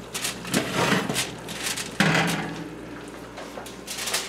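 Foil-covered metal baking pan being pulled out along a wire oven rack with an oven mitt: scraping and clattering of pan on rack, with a sharper knock about two seconds in.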